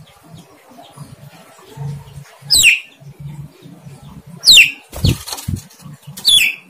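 Javan myna giving three short, shrill whistled calls that fall steeply in pitch, about two seconds apart. A couple of low thumps come about five seconds in.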